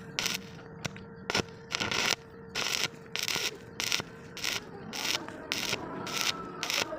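A rhythmic run of short rasping strokes, about one to two a second and quickening near the end, like a hand tool being worked back and forth over metal.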